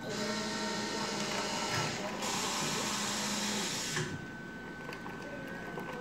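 Encore29 coffee machine running during a brew: a steady mechanical whir with a low hum for about four seconds, growing louder about two seconds in, then stopping.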